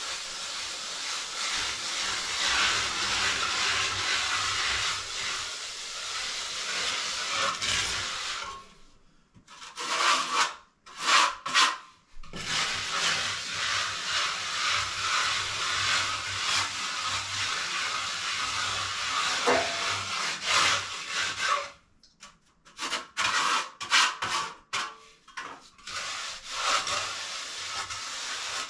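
A hand float rubbing over freshly applied cement render, smoothing the surface: a continuous gritty scraping, broken by a few short pauses between strokes.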